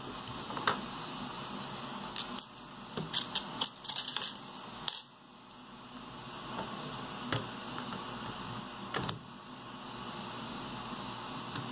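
Light clicks and clinks of small metal hardware and an Allen key against plastic parts as they are handled and fitted. A quick run of them comes about two to five seconds in, then a few single clicks later, over a steady hiss.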